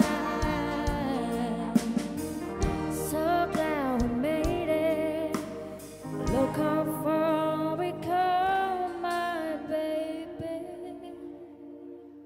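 Live band playing with sung vocals, a male and a female voice holding long notes with vibrato over guitars, bass and drum hits. The music fades away near the end as the song closes.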